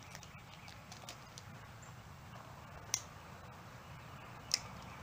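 Light handling clicks and taps from hands working a small object, with two sharper clicks about three seconds in and near the end, over a low steady background hum.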